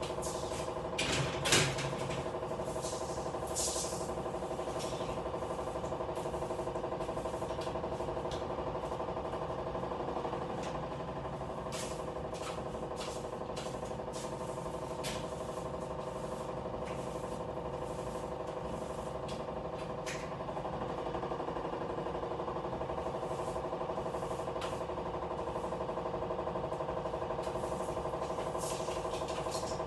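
A steady mechanical hum with scattered clinks and knocks, the loudest knock about a second and a half in.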